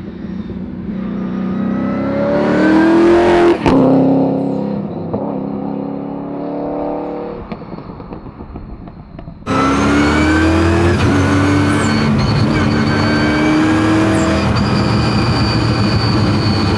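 Twin-turbocharged and supercharged Ford Coyote V8 pulling under throttle, its pitch rising through the gears, with quick sequential-gearbox upshifts cutting in. The engine eases off briefly, then comes back much louder about halfway through and climbs again to another shift.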